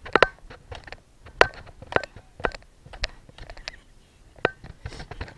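A series of sharp knocks and clacks at uneven intervals, roughly two a second, several ending in a brief high ring.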